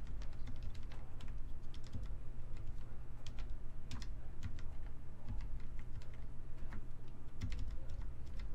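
Fast, irregular typing on a mechanical keyboard with its keycaps removed, fingers striking the bare switch stems, with a steady low hum underneath.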